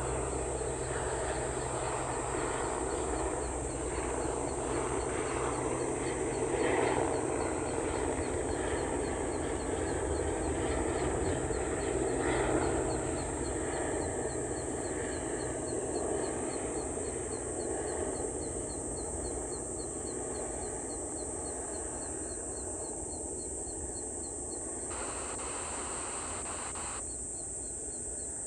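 Rural outdoor ambience: birds calling over a steady high-pitched hiss and a fast faint ticking, with a low rumble that slowly fades.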